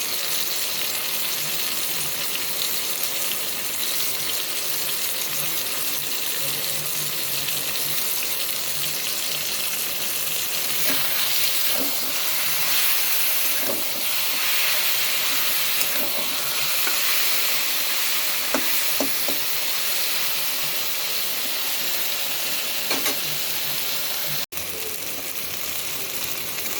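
Taro leaves with a hilsa fish head sizzling steadily as they fry down in oil in a pan, with occasional clicks and scrapes of stirring. The greens are being cooked until the oil separates.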